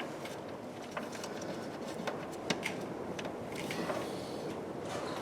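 Scattered light clicks and taps of hands working parts and plastic air lines around an air-suspension compressor, over a faint steady hiss.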